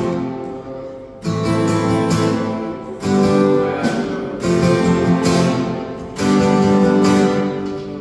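Acoustic guitar strumming chords, each chord left to ring out and fade before the next, four chords about a second and a half to two seconds apart.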